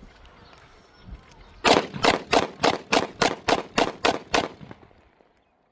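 Glock 19X-pattern 9mm pistol fired in a quick string of about ten shots, roughly three a second, emptying its ten-round magazine.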